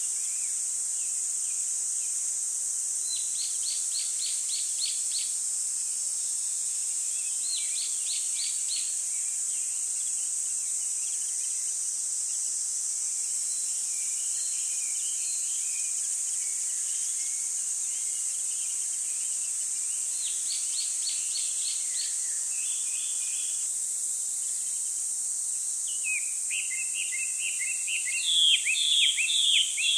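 Small birds chirping in short rapid trills a few times, then more densely and louder near the end, over a steady high-pitched hiss.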